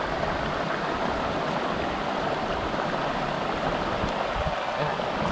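Steady rushing of a rocky stream, water running over stones in an even hiss.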